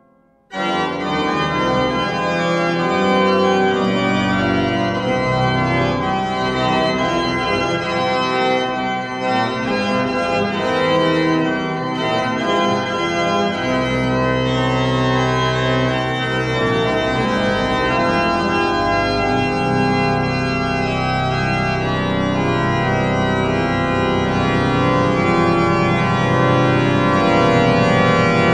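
Background instrumental music of sustained, held chords, starting suddenly about half a second in.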